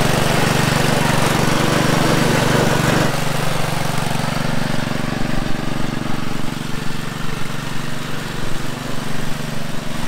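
Riding lawn mower engine running as the Yard Machines mower drives across gravel. It is loud and close for about the first three seconds, then farther off and uneven in level.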